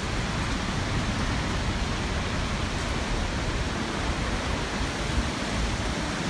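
Steady rushing noise of a waterfall close by and its heavy spray, falling like rain.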